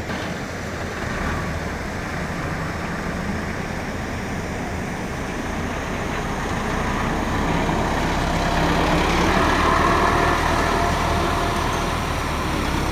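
Massey Ferguson 375 tractor's three-cylinder diesel engine running under load as it pulls a trolley full of mud, a steady low chug that grows louder for a few seconds past the middle.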